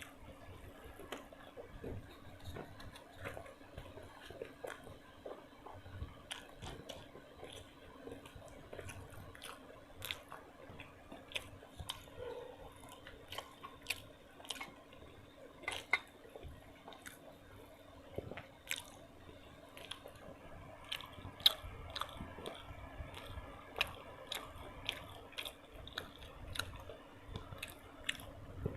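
A person chewing and biting food close to the microphone, with irregular sharp mouth clicks and occasional crunches.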